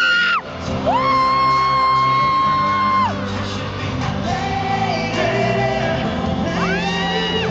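Live pop concert music playing loud through arena speakers, with a fan close to the microphone letting out long, very high screams, three times, the longest held about two seconds.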